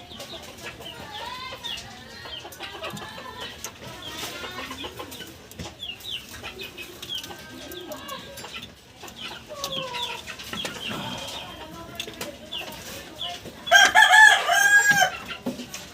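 Chickens clucking on and off, with a rooster crowing once, loudly, about a second and a half long, near the end.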